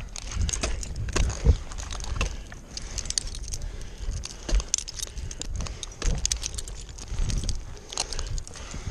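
Irregular jingling and clinking of a tree climber's metal gear (carabiners and hardware) with rustling and knocks as he moves and handles equipment on the trunk; the chainsaw is not running.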